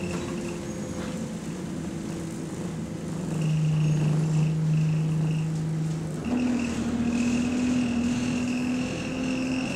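Single-deck bus's engine and cooling fan running, heard from inside the saloon: a steady drone with a high whine above it that comes and goes. It grows louder about three seconds in and steps up in pitch about six seconds in. The bus is running in limp-home mode.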